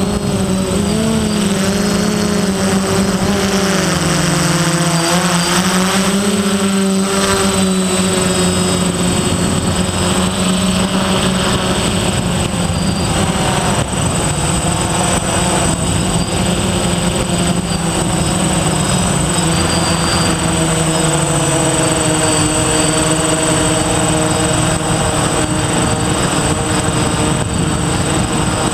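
Electric motors and propellers of a DJI F450 quadcopter buzzing in flight, the pitch wavering up and down as the throttle changes, over a steady high thin whine.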